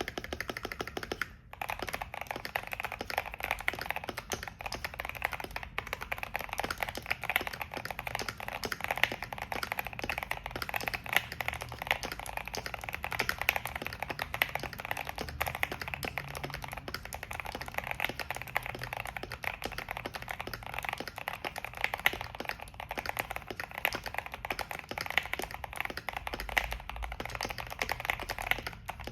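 Steady, fast typing on a Keychron Q1 V2 aluminium mechanical keyboard with JWK Vertex V1 switches, in its fully modded state: force-break mod, tape mod, tuned stabilizers and PE foam. There is a brief pause about a second and a half in.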